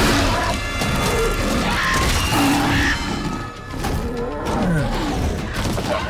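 Film action sound mix: a raptor-like bird attacking a cat-like predator, with a heavy impact at the start and then several animal cries gliding up and down in pitch over a dramatic orchestral score.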